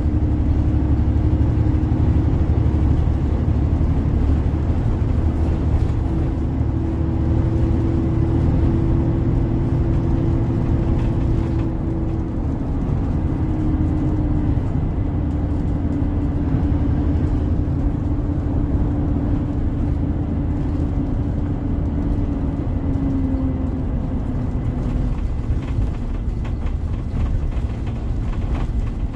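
Hyundai New Super Aerocity bus's D6HC H-engine, an inline-six diesel, running, heard from inside the passenger cabin: a steady low drone with a whining tone above it that steps down slightly about halfway through and again near the end.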